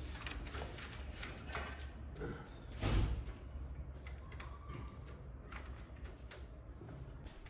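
Handling noises: scattered small clicks and knocks, with one louder dull thud about three seconds in, over a low steady hum.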